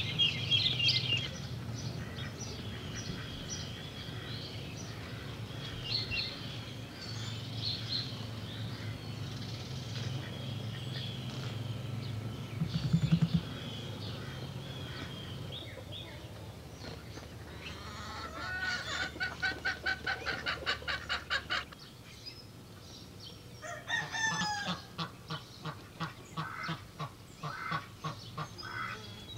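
Birds calling: chirps over a low steady hum for the first half, then two runs of rapid, evenly repeated honk-like calls.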